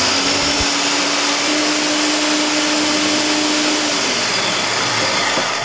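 Countertop food processor running at full speed, blending pumpkin pie filling (mashed pumpkin, cream, eggs and spices): a loud, even whir over a steady motor hum, slowing and stopping near the end.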